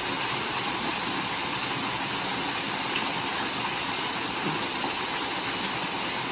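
Small waterfall pouring into a river pool: a steady rushing splash of falling water.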